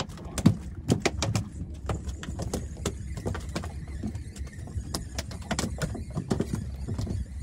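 Irregular light knocks and clicks, several a second, over a steady low rumble.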